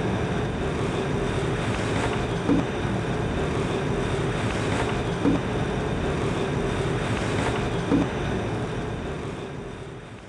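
Slat-belt treadmill running: a steady motor and belt hum with a soft thump about every three seconds as the belt comes round. It fades out near the end.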